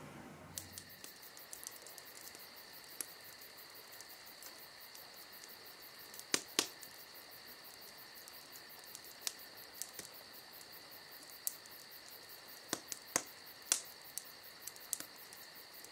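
Crickets chirping: a steady high trill with faint regular ticking and a few louder scattered clicks.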